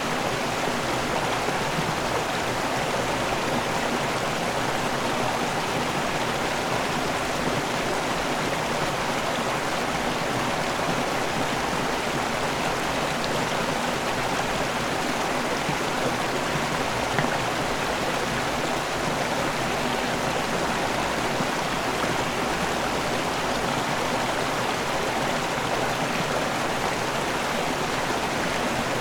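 River water pouring over a small waterfall and rushing on: a steady, even rush of water.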